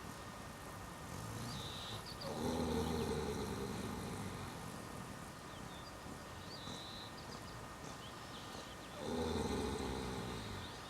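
Horse snoring in deep sleep: two long, rumbling snores, one about two seconds in and another near the end.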